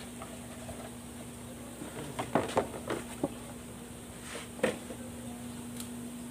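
A steady low hum, with a cluster of light knocks and clinks about two to three seconds in and one sharper knock near the five-second mark, as parts are handled at a truck engine during an oil-filter change.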